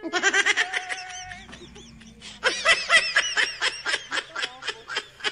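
People laughing hard close by: a burst at the start, then a long run of rapid 'ha-ha' bursts, several a second, from about halfway through.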